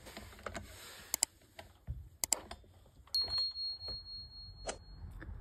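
Faint light clicks of multimeter test-probe tips touching the metal terminals of a range burner's limiter. About three seconds in, a steady high-pitched beep starts and holds for about two seconds.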